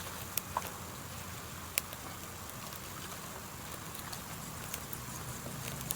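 Small wood campfire burning with a faint steady hiss and a few sharp crackles and pops, the loudest about two seconds in.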